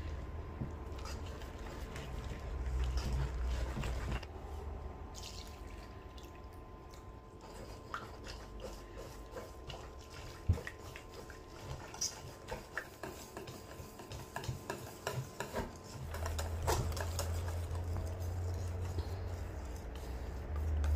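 Wire whisk beating thick, wet pancake batter in a stainless steel bowl. It makes a wet stirring sound with irregular clicks of the wires against the metal bowl, most frequent in the middle of the stretch.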